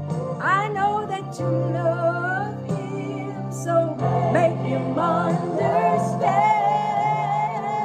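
A woman sings a solo gospel song with a wavering vibrato on her long notes, over a backing accompaniment of steady held low notes.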